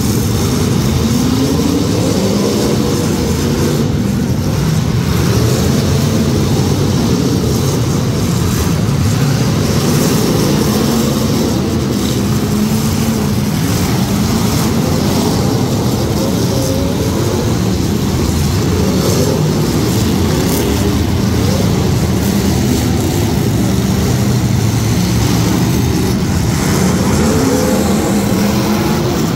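Several demolition derby cars' engines running hard together, their pitch rising and falling as the drivers rev and back into one another, with occasional crunches of cars colliding.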